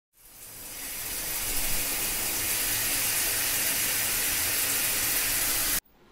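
Running water in a bathroom, a steady bright hiss that fades in over the first second and cuts off abruptly near the end.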